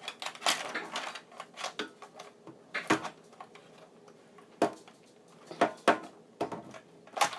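Irregular plastic clicks and knocks from a Nerf blaster being handled and fiddled with, about half a dozen sharp clacks.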